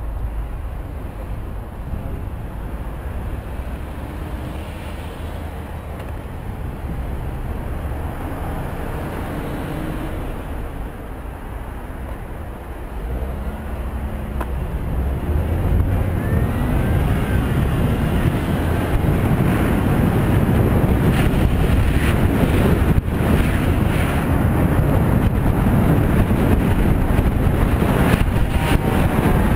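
Wind rushing over the microphone of a cyclist's camera, with car traffic around. It grows louder and rumblier about halfway through as the bicycle picks up speed.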